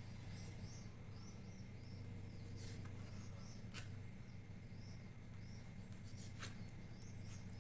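Faint chirping of small birds, short high chirps in runs, over a steady low hum. Three sharp clicks from a knife on a cutting board as bread crusts are cut off.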